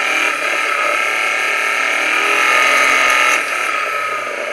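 A boosted engine under load, heard through its knock sensor and played back as audio: a dense mechanical clatter and hiss of valve train and combustion noise. About halfway through, where it is loudest, the classic rattling of detonation (engine knock) comes in.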